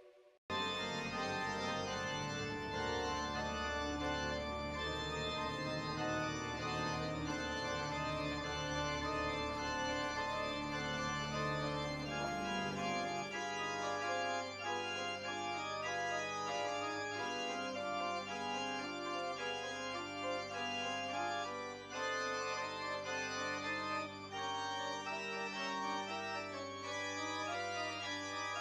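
Organ music of slow, sustained chords that starts about half a second in, with the bass shifting to a new held note about halfway through.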